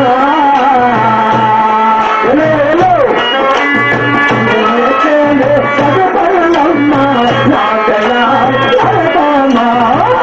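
Live folk music for a Kolatam stick dance: a drum beating a steady rhythm of about two strokes a second under a gliding, wavering melody line, with sharp clicks that fit the dancers' sticks striking together.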